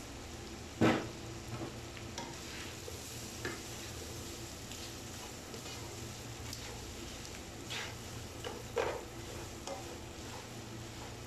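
Wooden spatula stirring and scraping diced offal sautéing in a nonstick wok, with a light sizzle over a steady low hum. A sharp knock, the loudest sound, comes about a second in, and a few more knocks and scrapes come near the end.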